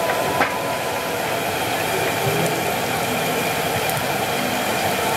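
Battered pieces deep-frying in a large wok of hot oil, giving a steady, dense sizzle. There is a light metal clink from the tongs or skimmer about half a second in.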